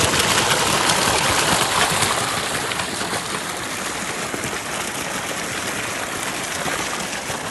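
Water gushing steadily from a solar water pump's 4-inch outlet pipe, a continuous rushing that gradually gets quieter over the second half.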